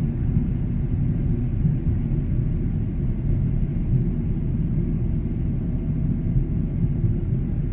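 Boeing 777-300's jet engines giving a steady low rumble, with no change in level.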